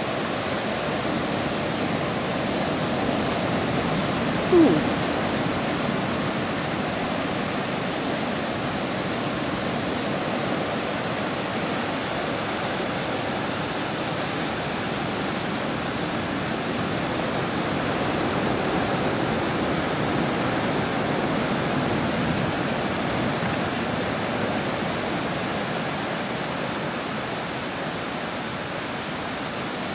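Steady wash of sea surf breaking on a beach, swelling slightly now and then. About four and a half seconds in comes one short falling call.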